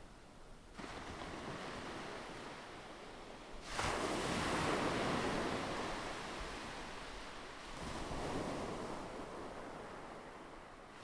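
Ocean surf: waves washing in, with a larger wave breaking suddenly about four seconds in and another near eight seconds, then easing off.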